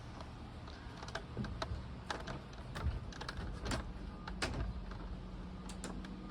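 Scattered light clicks and taps, about a dozen at irregular intervals, over a low steady hum.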